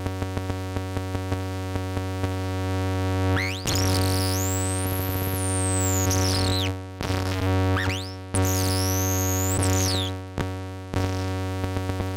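Eurorack modular synthesizer feedback patch (Make Noise Maths, Random*Source Triple+ Waveshaper, Flight of Harmony Plague Bearer), with no oscillators: a low buzzing drone with regular clicks. From about three seconds in, high whistling tones join it, sweeping up and down, and they drop out around ten seconds.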